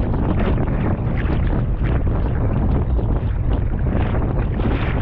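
Steady wind buffeting the microphone, a dense rumbling noise that flutters up and down without a break.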